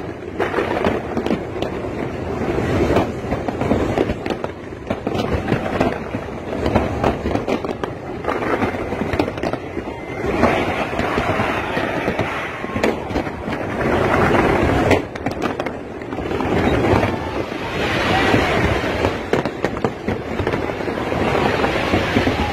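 Fireworks display: a dense, unbroken run of bangs and crackling that swells and eases every few seconds.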